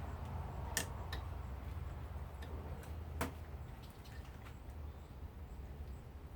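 A few sharp clicks and clinks of hand tools working at a brass water heater valve: two close together about a second in, then two more about three seconds in, over a steady low hum.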